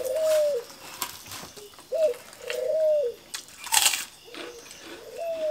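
A dove cooing over and over: short coos that rise and fall in pitch, one every second or two. Light clicks and a brief hissing burst come a little before four seconds in.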